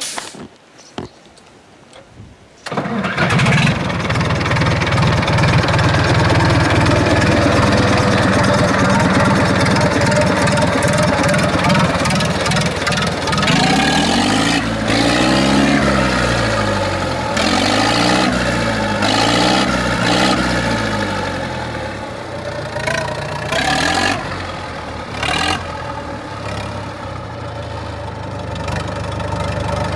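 UTB 650 tractor's diesel engine cold-starting: it catches suddenly about three seconds in and runs loud and fast. Near the middle it is revved up and down three times, then it settles to a lower idle.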